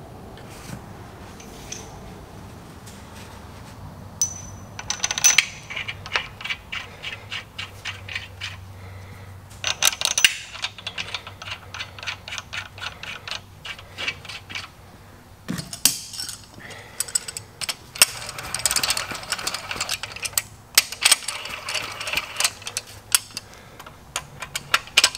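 Hand socket ratchet clicking in quick runs while main bearing cap bolts on a 383 Mopar big-block are run down to snug, with metal clinks of the caps and tools between the runs.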